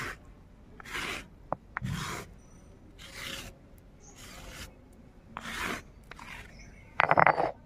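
A flat wooden scraper rasping across a rough stone grinding slab (sil), gathering ground ginger-garlic paste, in about seven separate strokes roughly a second apart. The last stroke, near the end, is the loudest, with sharp clicks.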